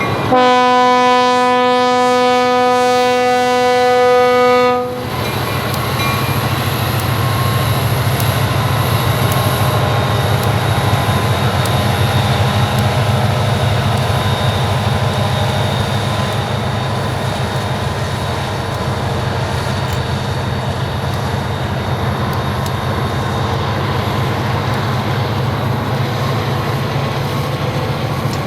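Diesel locomotive horn sounding one long, steady blast that cuts off after about five seconds. It is followed by the steady low rumble of an EMD GP40's turbocharged 16-cylinder diesel working as the train moves past, with wheel and rail noise.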